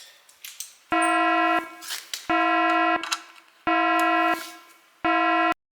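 Four identical electronic tones at one steady pitch, each about two-thirds of a second long and about a second and a half apart, starting and stopping abruptly like a warning alarm sound effect. They cut off to dead silence near the end.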